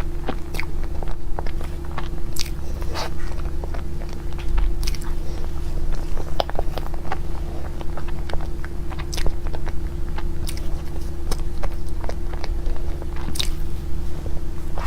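A person biting into and chewing cake, with many short sharp crunching crackles at an irregular pace, over a steady low hum.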